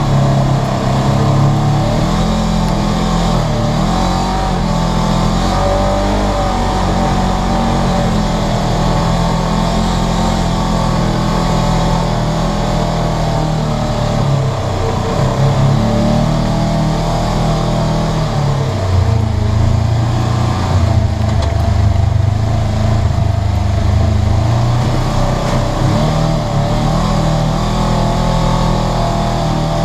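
Polaris RZR 900 side-by-side's twin-cylinder engine running continuously as it drives a dirt trail, its revs rising and falling, heard from inside the cab. The engine note dips lower for several seconds about two-thirds of the way through.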